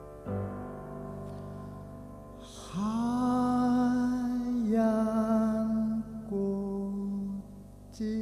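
A man singing slow, long-held notes over piano accompaniment. About three seconds in, his voice slides up into the first sustained note and wavers with vibrato; the held notes continue after it.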